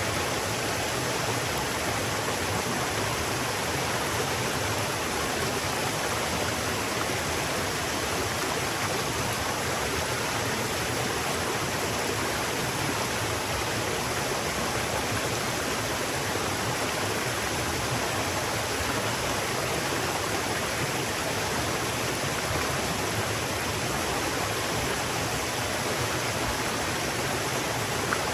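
River water flowing, a steady, even rushing noise that does not change.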